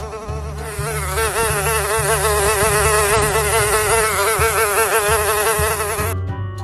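Fly buzzing: a steady wing buzz whose pitch wavers quickly up and down. It stops near the end as music comes in.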